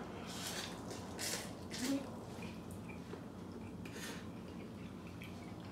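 Instant noodles slurped in several short slurps, with light clinks of utensils against the bowls.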